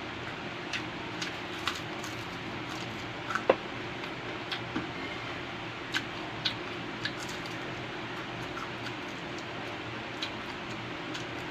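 Eating sounds: scattered small clicks and wet smacks from chewing and utensils, with one sharper click about three and a half seconds in, over a steady background hiss.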